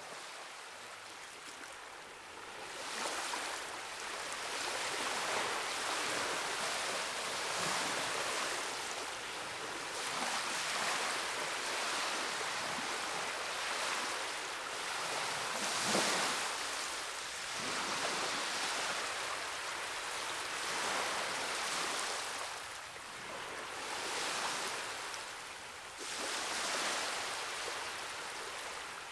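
Ocean surf: a steady hiss of waves that swells and ebbs every few seconds.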